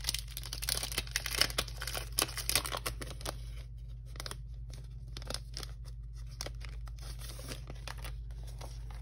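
Clear plastic packaging sleeve being opened and handled, crinkling and crackling as the vellum and acetate sheets are drawn out. The crackling is densest in the first three seconds or so, then thins to scattered crackles and taps.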